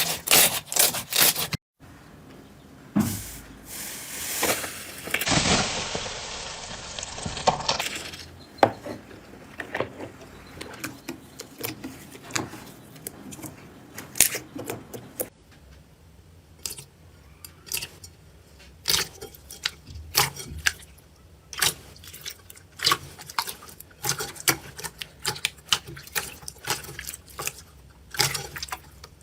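Slime being pressed, stretched and poked by hand, giving a run of sharp clicks, pops and crackles. It comes as several separate clips one after another, with a denser squishing, crackling stretch a few seconds in.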